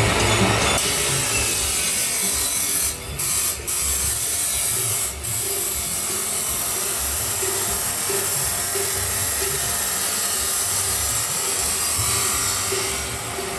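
Angle grinder's abrasive disc cutting stainless steel pipe: a steady, high hissing grind that breaks off briefly three times in the first few seconds and eases off near the end.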